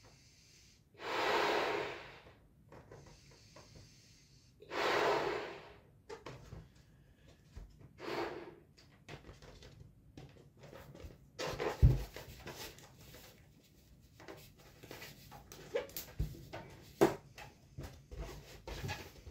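Long breaths blown by mouth into a latex balloon to inflate it, two long blows about a second and five seconds in and a shorter one near eight seconds. These are followed by handling noise of the rubber balloon as its neck is knotted: scattered squeaks, rubs and knocks, with the sharpest knock about twelve seconds in.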